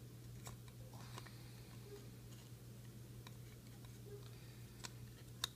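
A few faint, scattered clicks and light rustles from trading cards being handled, the sharpest click near the end, over a low steady hum.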